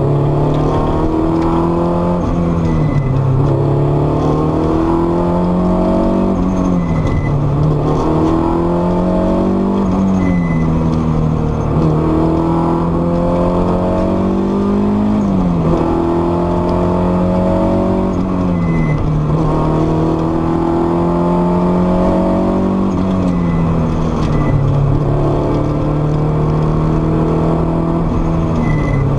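Supercharged Honda S2000's four-cylinder engine at racing pace, heard from inside the cabin. Its pitch climbs steadily under throttle, then drops sharply on lifts and downshifts for the corners, several times over.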